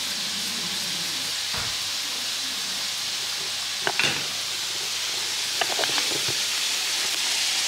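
Potatoes frying in hot oil in a pan, a steady sizzle. A few sharp clicks and knocks come about four seconds in and again around six seconds.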